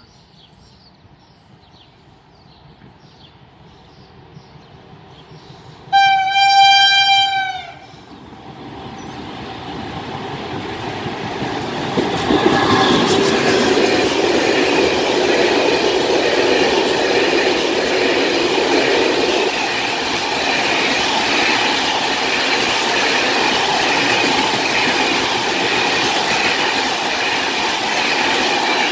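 Small birds chirping, then a train horn sounds one steady tone for about two seconds. An electric locomotive hauling a long freight train of open steel wagons then approaches and runs past close by, its noise building up over a few seconds and staying loud to the end.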